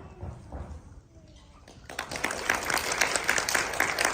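A few quiet knocks and rustles, then audience applause breaking out about halfway through.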